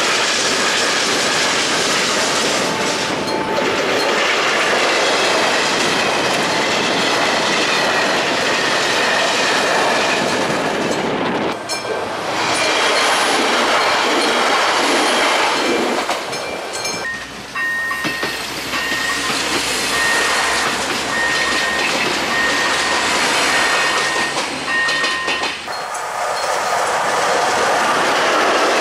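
Trains running over level crossings, wheels clattering over the rail joints with some squeal. Partway through, the crossing's warning signal sounds a high beep about once a second for several seconds over the passing train. The sound changes abruptly twice, as from one crossing to another.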